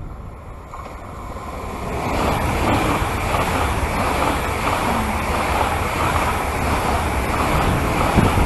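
ICE high-speed train running through the station: a loud, steady rush of wheels on rail and air, building over the first two seconds. Wind rumbles on the microphone underneath.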